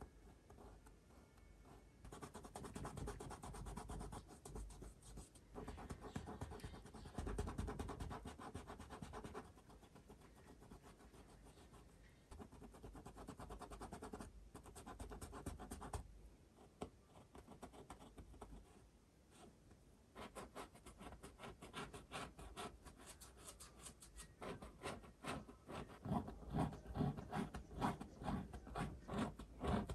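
Paintbrush scratching across canvas as water-mixable oil paint is laid on in longer strokes. From about two-thirds in, the strokes turn short and quick, about two to three a second, louder near the end.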